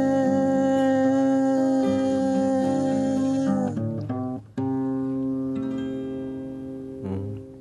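Acoustic guitar playing the closing chords of a bard song: sustained chords, then after a short break a final chord struck about four and a half seconds in that rings and slowly fades, with a light strum near the end.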